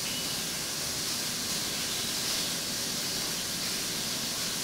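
Steady hiss of oil sizzling in a frying pan as chicken breast sears in olive oil.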